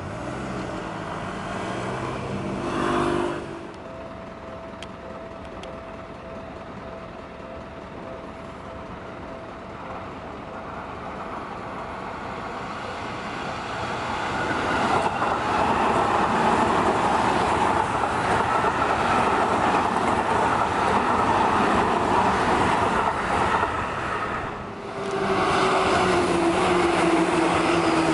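Seibu Railway electric commuter trains running by on the track: wheel and motor noise that grows loud about halfway through as a train passes. After a brief dip near the end, a yellow Seibu train passes close, with a motor whine falling in pitch.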